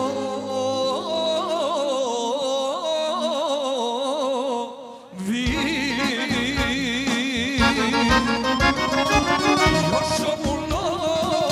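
Live Serbian folk-pop band music. For the first five seconds a wavering, ornamented melody runs over held chords. After a brief drop, the full band comes in with a steady drum beat.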